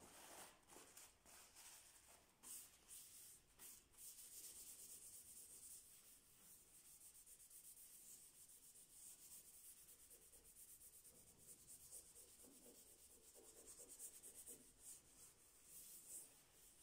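Faint hand sanding: sandpaper rubbed back and forth over wooden parquet flooring in quick, dense strokes, smoothing the boards after their gaps were filled with polyurethane foam.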